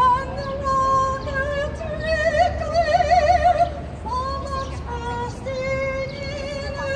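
A woman singing solo with heavy vibrato, holding long notes, over a steady low rumble.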